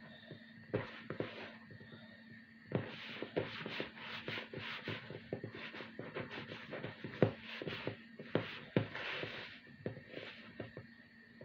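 A hand mixing a soft, wet yeast dough in a plastic bowl: irregular squelches, slaps and knocks of dough and knuckles against the bowl, the sharpest about halfway through. A faint steady tone hums underneath.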